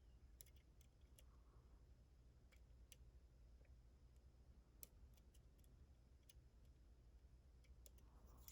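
Faint, irregular clicks of a lock pick working the pins inside a Den Brass challenge lock, over a low steady hum.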